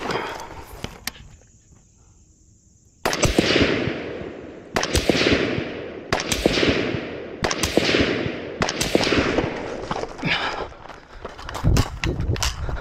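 Five single rifle shots from a 5.56 mm Recce-style AR-15 precision rifle, fired one at a time about one and a half seconds apart, starting about three seconds in, each trailing off in an echo. Softer knocks follow near the end.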